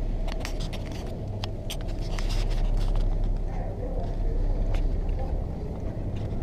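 Steady low drone of a passenger ferry's engines heard inside the ship, with scattered sharp clicks and knocks.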